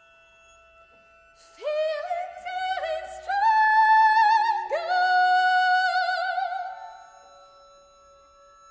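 Soprano voice singing a short phrase of contemporary classical music: a few notes that each swoop up into a pitch held with wide vibrato, the last one dying away about seven seconds in. Faint held instrumental notes sound underneath.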